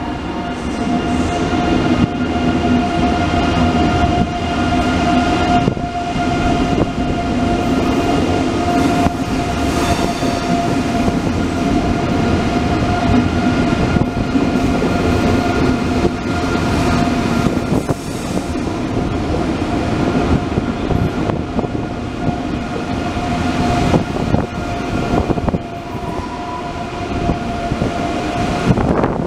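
ICE 3M (class 406) high-speed electric train rolling slowly past along a station platform: a steady electrical whine over a low rumble of the running gear, holding one pitch throughout.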